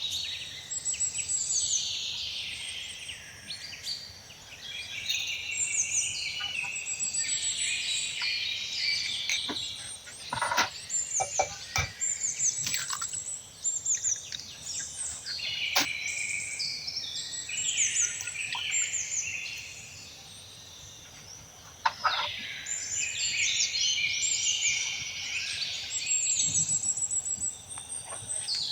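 Several small birds chirping and singing together in many quick overlapping high calls, with occasional sharp clicks or knocks.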